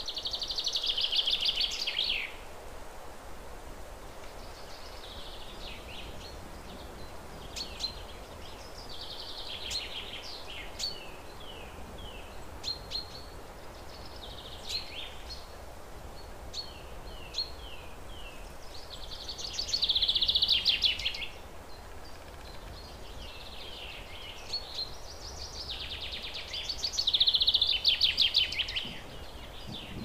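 Thrush nestlings begging in the nest: four bursts of rapid, high-pitched cheeping, each about two seconds long, with scattered short falling chirps between them over a steady background hiss.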